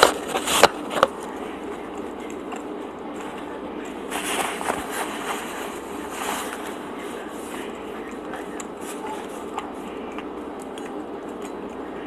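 Eating and handling sounds from a French bread roll filled with mashed beans: three sharp clicks in the first second, then a stretch of crackly rustling about four seconds in and scattered faint ticks, over a steady background hum.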